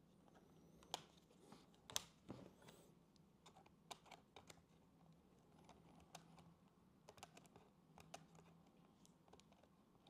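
Faint, scattered small clicks and taps of fingers handling the battery cable connector and its tape inside an opened Acer Nitro 5 laptop, plastic parts ticking against each other at irregular intervals.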